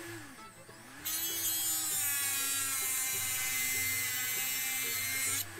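Dremel rotary tool with a cutoff disc cutting through a bent steel cross pin. A loud high-pitched whine starts about a second in, holds steady, and stops abruptly near the end.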